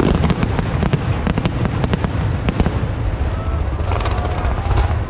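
A star mine fireworks barrage: many shells bursting in rapid succession, a dense, continuous crackling over a steady deep rumble.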